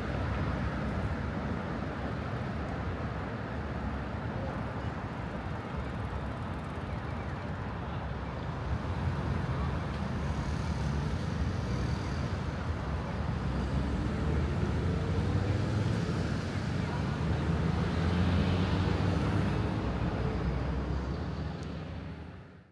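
Steady road traffic noise from a busy city street: passing cars and trucks with a low rumble, growing louder in the second half. An engine rises in pitch as a vehicle accelerates about sixteen to twenty seconds in, and the sound fades out at the very end.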